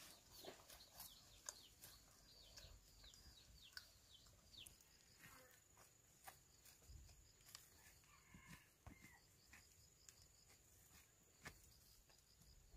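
Faint bird chirps: a quick run of short, high, falling peeps in the first few seconds, then a few scattered ones, over a thin steady high whine and scattered small clicks.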